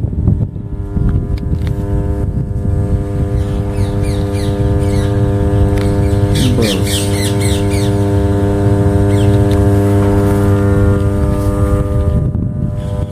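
33/11 kV oil-filled power transformer humming steadily, a deep mains hum with a stack of even overtones, the normal sound of a power transformer working at high voltage. Birds chirp over it, most busily about six seconds in.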